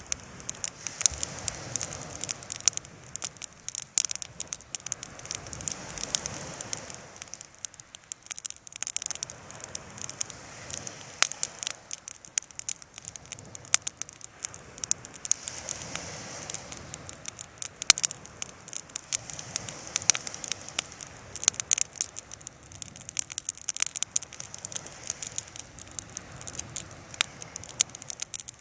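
Open wood fire crackling, with many irregular sharp pops and snaps over a steady hiss. A soft rushing swells and fades every few seconds.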